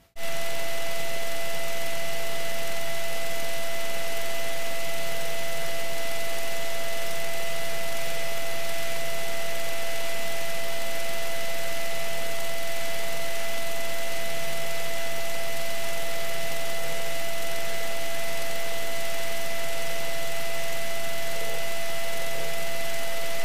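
Steady hiss with a constant electrical hum and whine, cutting in abruptly and holding an even level, as heard through a light aircraft's headset and intercom audio feed in flight.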